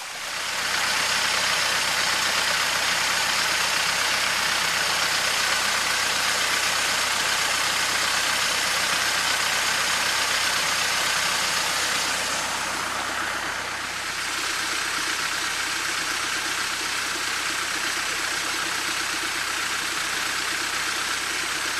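Floodwater rushing steadily out of the mouth of a drainage pipe and pouring into a swollen creek.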